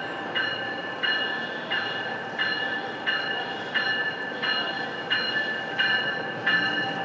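Electric commuter train's warning bell ringing steadily, struck about one and a half times a second, over the low rumble of the train pulling into the station platform.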